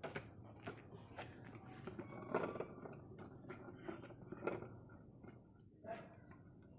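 Faint, irregular small clicks and taps as a baby monkey handles a hanging plastic jar of longans and grips its lid.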